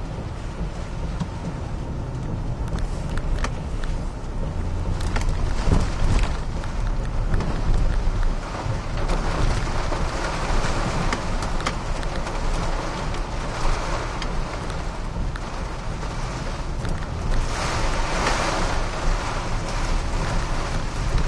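Hurricane wind and heavy rain lashing a moving truck, heard from inside the cab over a low engine and road rumble. The rain swells in several gusts, the strongest near the end, with a few sharp ticks of hits on the vehicle.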